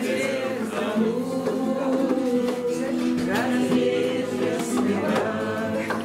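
A group of people singing together to an acoustic guitar.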